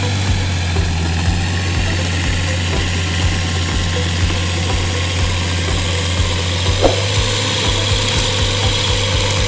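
Tractor engine running steadily while the tractor works a flooded paddy on steel track wheels, with a regular low thudding several times a second. A brief sharp sound comes about seven seconds in.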